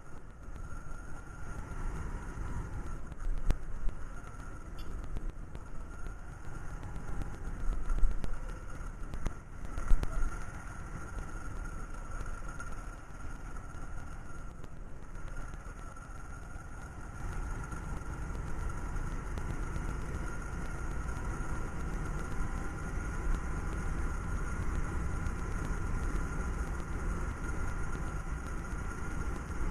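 TVS Sport single-cylinder motorcycle running on the move, heard from an onboard camera with wind rushing over the microphone and a steady high whine. A few loud knocks stand out in the first ten seconds.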